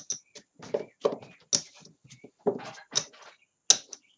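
Casino chips clicking against each other on a felt craps layout as a hand picks up the losing place bets after a seven-out: a dozen or so sharp clicks at irregular intervals.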